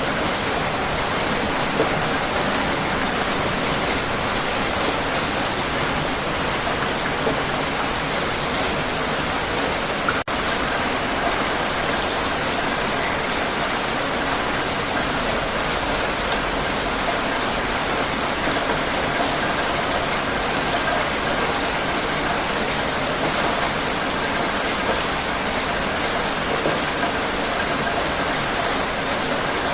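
Heavy rain falling steadily, a dense even patter on surfaces, with a momentary dropout about ten seconds in.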